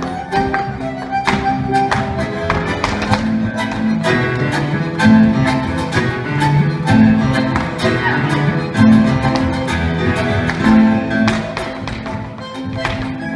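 Live chacarera played by a small tango orchestra of violin, bandoneon, piano and double bass, with sharp stamps and heel strikes from the dancers' zapateo footwork on the wooden stage.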